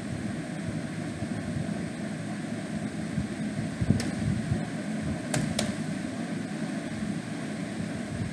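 Steady background hum with three computer keyboard key clicks, one about four seconds in and a quick pair about a second and a half later, as a search term is typed.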